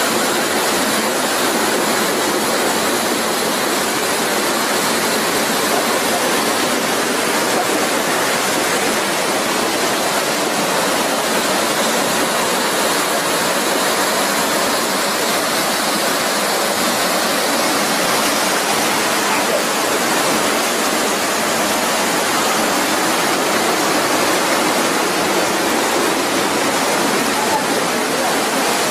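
Small waterfall pouring over rock into a pool: a steady, loud rush of water that holds level throughout.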